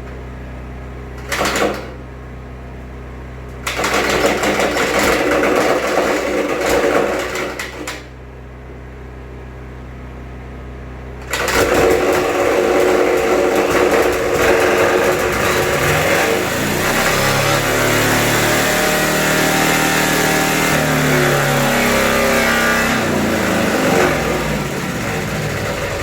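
Wisconsin TJD air-cooled twin-cylinder engine on a Howard Gem rotary tiller running away: the throttle is held wide open by a governor rusted in place. After shorter loud stretches, it comes in loud about eleven seconds in and runs fast, its pitch wavering up and down.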